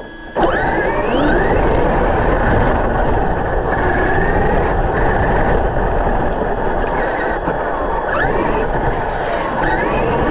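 Electric RC monster truck driving hard: the brushless motor and drivetrain whine rises in pitch with several bursts of throttle, over a steady rushing rumble from tyres and terrain.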